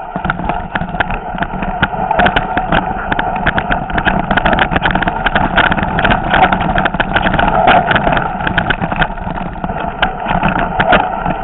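Mountain bike descending a loose rocky trail: a continuous clatter of the bike's frame and tyres rattling over stones, with many sharp knocks over a steady rumble, picked up by a camera mounted on the bike.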